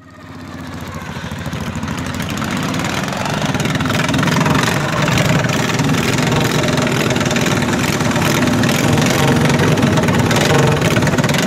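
Several racing garden tractors' small engines running together. The sound fades up over the first few seconds and then holds steady.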